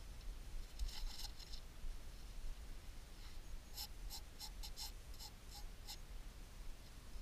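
Gloved hand rubbing soil off a rusted, freshly dug-up helmet: faint scraping, with a quick run of about ten short rubs in the middle.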